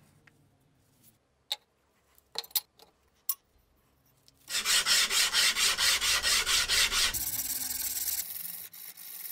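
Hand sanding a steel knife blade: a few sharp clicks, then quick back-and-forth strokes of abrasive on the steel, about six a second, going over to softer rubbing near the end.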